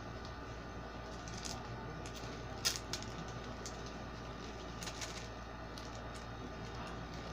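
Faint scattered clicks and taps of a small gold-plated jewellery piece being handled and checked for a break, over a steady low hum.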